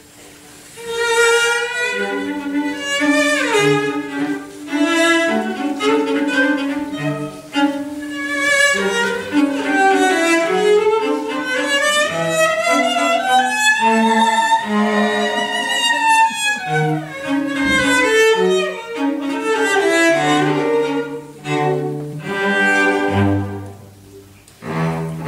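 A cello ensemble playing, several cellos bowed together. The music comes in about a second in, with a long downward slide about three seconds in and a high melody line that arches up and back down in the middle.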